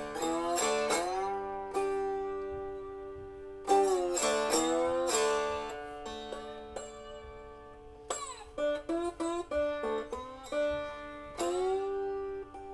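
Three-string cigar box guitar tuned D-A-D being played: plucked notes and chords ringing out, several of them sliding up into pitch before settling.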